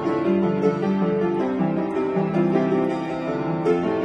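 Solo piano playing a Japanese children's-song medley: a melody over a steady chordal accompaniment, with notes changing several times a second.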